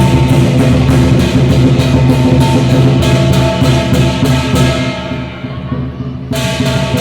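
Dragon dance percussion: a big drum and clashing cymbals struck fast and loud, about four strikes a second, over a ringing low drone. The cymbals drop out about five seconds in, then come back with a loud crash near the end.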